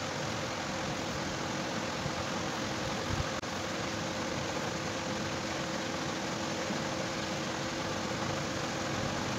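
A steady machine hum with an even hiss, holding two steady tones, broken by a brief dropout about three and a half seconds in.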